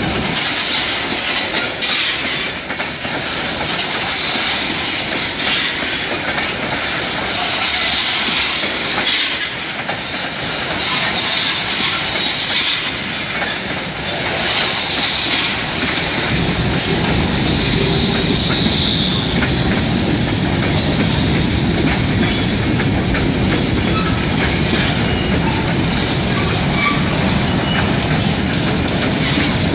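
Freight cars of a passing CP freight train: steady rumble and clatter of steel wheels over the rails, with a high wheel squeal coming and going in the first half. The low rumble grows heavier about halfway through.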